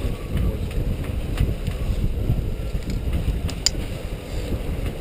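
Wind buffeting the microphone aboard a sailboat, a steady rumbling gust noise, with a few light clicks about a second and a half in and again past three and a half seconds.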